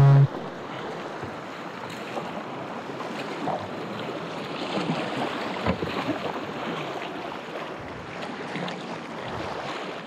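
Whitewater river rushing over shallow rocks around a kayak, with occasional splashes of the paddle blades in the water.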